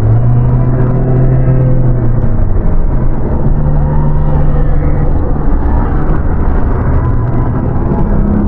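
Dark ambient horror drone: a dense low rumble with sustained deep tones that change pitch every couple of seconds.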